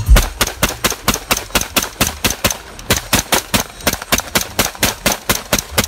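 Colt M4 carbine fired in a rapid, evenly spaced string of shots, about five a second, with no break: semi-automatic fire as fast as the trigger can be pulled, emptying a magazine.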